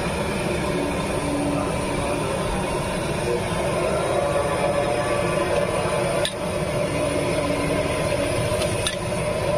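Steady roar and sizzle of noodles frying in oil in a large wok over a gas burner, with a metal spatula knocking against the wok twice in the second half.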